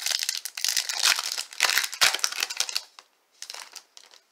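Packaging crinkling close to the microphone, with small clicks, as trading cards are handled. It runs busily for about three seconds, stops, and comes back in one short burst.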